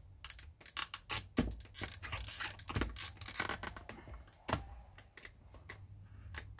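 Plastic clicking and scraping from a 2001 Ford F350 Super Duty fuse box as its clips are released and its layers prised apart. A quick run of sharp clicks comes in the first half, then a few sparse ones.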